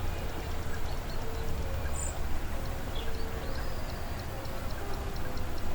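Nature ambience: a steady low wind rumble with birds calling, short calls here and there, over a rapid, even high chirping of about five a second.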